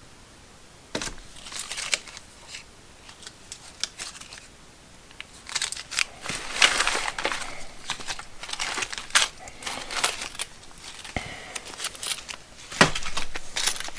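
Small steel bolts and nuts being sorted by hand, clicking and clinking against each other and the surface, with some plastic packaging crinkling.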